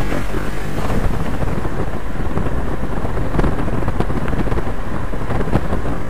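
Steady wind noise buffeting the microphone on a moving vehicle, with the vehicle's running and road noise beneath and a few short knocks.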